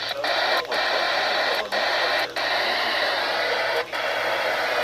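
Weather radio receiver giving a steady static hiss with no voice, broken by about five brief dropouts.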